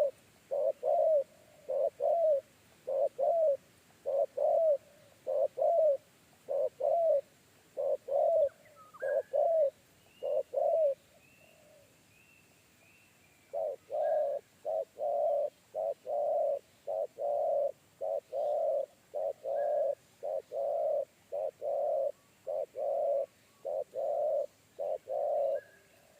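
Spotted dove cooing in a long run of short, deep coos, about one a second. After a short pause near the middle it takes up again in a faster run.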